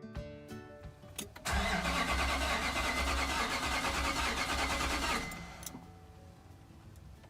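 A car's starter motor cranking the engine: a sharp click about a second in, then loud, rapidly pulsing cranking for about three and a half seconds that stops abruptly.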